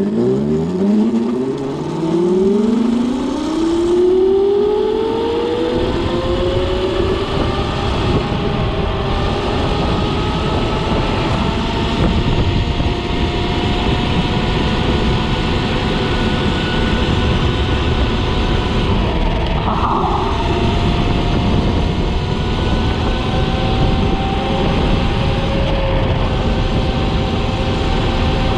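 6000 W, 72 V electric motor on a small mini bike whining as it accelerates hard from a standstill. The whine climbs steeply in pitch over the first few seconds, then holds high and nearly steady at speed over a constant rush of wind and road noise.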